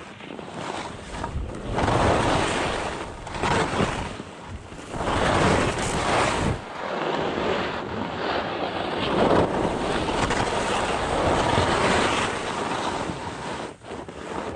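Skis scraping and carving over hard-packed snow, the noise swelling and fading in surges every couple of seconds, mixed with wind rushing over the microphone.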